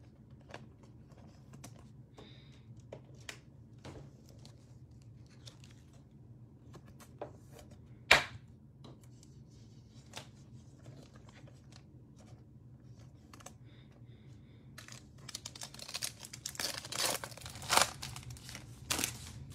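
A foil Optic trading-card pack being torn open and crinkled by hand for several seconds near the end, after a stretch of faint scattered clicks and one sharper tap from card handling.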